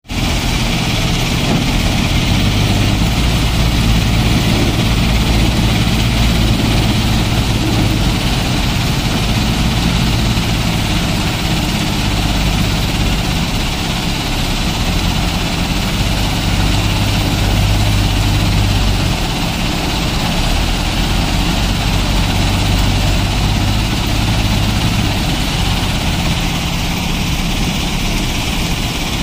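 JCB 3DX backhoe loader's diesel engine running under working load as the front loader scoops and lifts sand, with the engine note shifting a few times as it changes speed.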